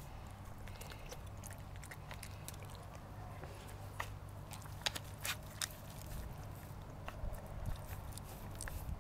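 Dog licking and chewing treats out of a wooden Dog Turbo puzzle toy, her nose and paw working its pegs, with a few sharp clicks and knocks about halfway through.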